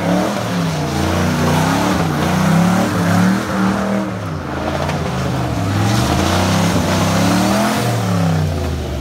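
1956 Chevrolet pickup's LS V8 revving up and down again and again, its pitch rising and falling every second or so, as the rear tyres spin in a smoky burnout, with a hiss of tyre noise underneath.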